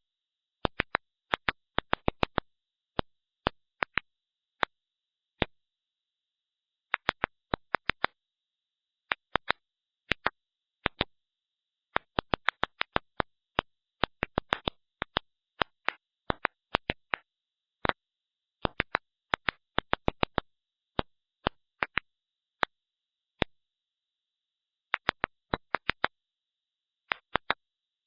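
Ultrasonic clicks given off by stressed plants, recorded by researchers and shifted down into hearing range: sharp, irregular pops, some in quick clusters and some alone, with gaps of up to about two seconds. A faint steady high hiss runs behind them.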